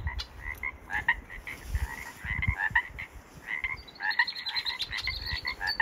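A chorus of marsh frogs calling: many short croaks overlapping, several a second. A fast, high trill joins in over the last couple of seconds.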